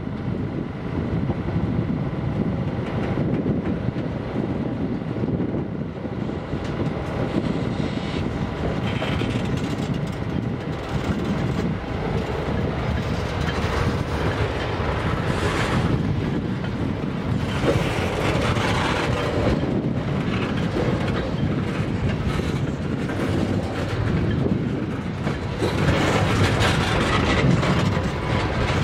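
Freight train of tank cars rolling past at close range: a continuous rumble of steel wheels on rail with clattering over the rail joints, getting somewhat louder near the end.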